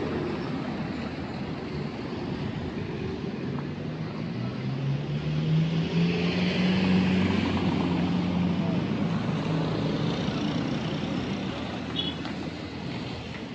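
Street traffic: a motor vehicle's engine passes close, rising in pitch and getting louder from about four seconds in, then fading, over a steady background of traffic and voices.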